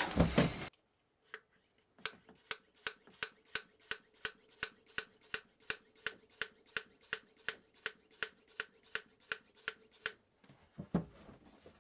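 Hand pump of a cooling-system pressure tester being worked in short, even strokes, about three a second, starting about two seconds in and stopping near the end. It is pressurising the marine diesel's freshly refilled fresh water cooling system to about 10 psi for a leak test.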